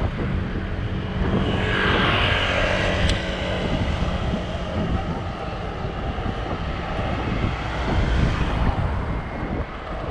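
City road traffic heard from a moving bicycle: a steady low rumble of engines and road noise, with a vehicle passing close about two seconds in.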